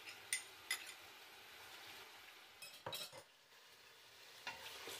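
A metal spoon clinks a few times against a small glass bowl while scraping out ginger-garlic paste, followed by a few knocks near the middle, then a wooden spatula stirring chicken pieces in oil in a stainless steel pot, faintly.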